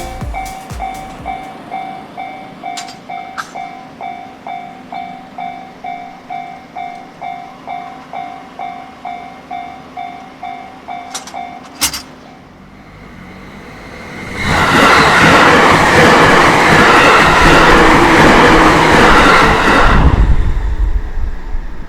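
Japanese level-crossing electronic warning bell ringing a repeated chime about twice a second, cutting off suddenly about twelve seconds in. A couple of seconds later a JR Takasaki Line train passes close by for about six seconds, a loud rumble of wheels on rail.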